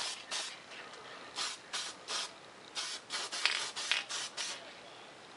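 Aerosol spray paint can hissing in short bursts, about a dozen quick sprays in three clusters, as a second coat of paint goes onto a foam model jet. The spraying stops about a second before the end.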